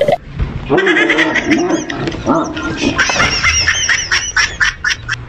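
A dog yelping and squealing, with a quick run of high-pitched yelps in the second half.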